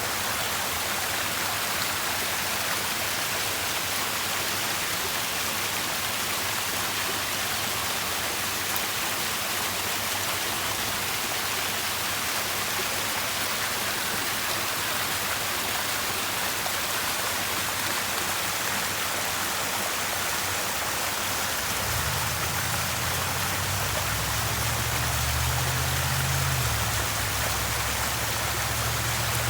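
Steady rush and splash of water falling and running in a garden water feature. About two-thirds of the way through, a low rumble joins in underneath.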